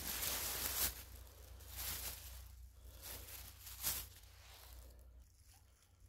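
Footsteps rustling through the forest floor, about one step a second, tapering off and stopping near the end.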